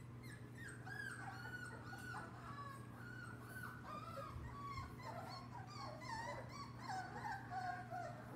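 Lab-mix puppies whimpering and crying, many high, wavering squeaks overlapping one another from about half a second in, over a steady low hum.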